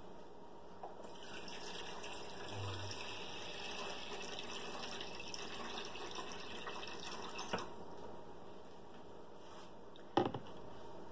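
A kitchen tap runs faintly for about six seconds, filling a plastic microwave veggie steamer with water to its fill line, then stops. A couple of plastic knocks follow near the end as the steamer is handled.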